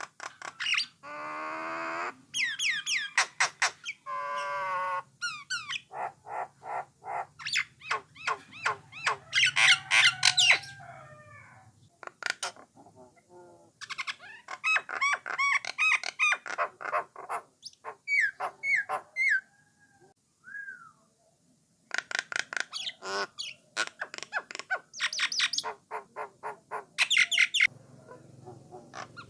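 A jalak nias (brown myna) singing: a varied, chattering song of fast repeated notes, rattles, whistled slurs and harsh squawks, delivered in bursts separated by brief pauses.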